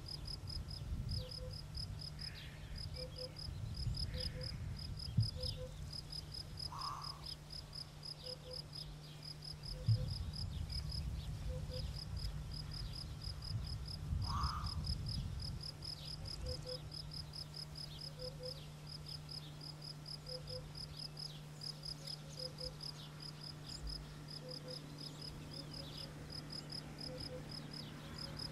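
Crickets chirping steadily, a run of short pulsed chirps repeating through the whole stretch, over a low rumble with a couple of soft knocks.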